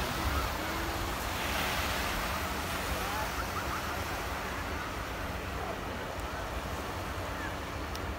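Small waves washing onto a sandy beach, with wind buffeting the microphone and faint voices of people on the beach.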